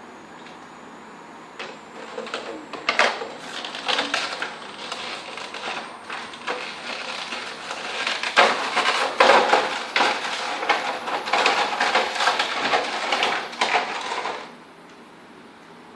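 Packaging being handled and torn open: a long stretch of irregular crinkling, rustling and clicking that starts a couple of seconds in and stops abruptly near the end.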